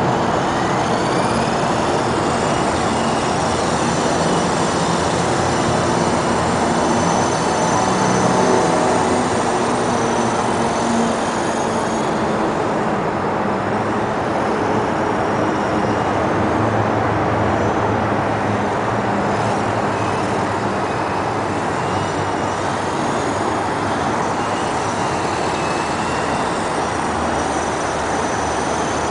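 E-sky Honeybee fixed-pitch mini RC helicopter's electric motor and rotor whining, the high pitch gliding up and down as the throttle changes the rotor speed, over strong wind buffeting the microphone.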